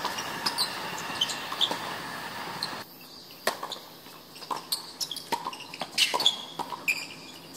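Doubles tennis rally: sharp pops of rackets striking the ball and the ball bouncing on the hard court, several times. A steady background hum cuts off suddenly about three seconds in.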